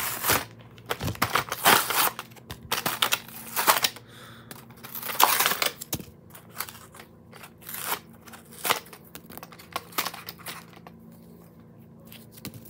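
Toy packaging being torn open and handled, in irregular bursts of tearing and crinkling with sharp rustles between them.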